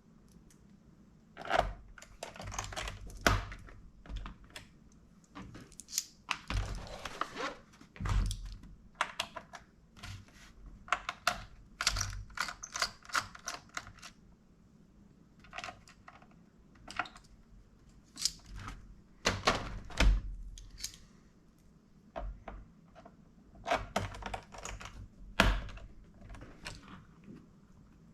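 Irregular clicks, taps and knocks of small plastic and metal laptop parts being handled during disassembly, with a short scraping stretch about a quarter of the way in.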